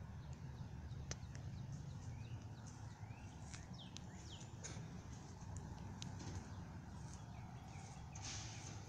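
Footsteps of a person walking on pavement over a steady low rumble, with a few faint bird chirps about three to five seconds in.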